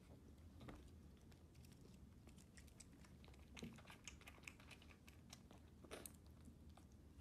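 Faint, irregular wet clicking and smacking of a baby bobcat suckling at a nursing bottle's nipple, with two slightly stronger taps, one midway and one near the end.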